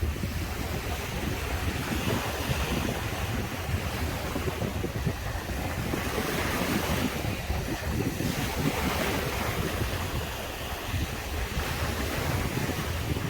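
Caribbean surf breaking and washing on a sandy beach, a steady rush with swells of hiss a few seconds apart, and wind buffeting the microphone with a low rumble.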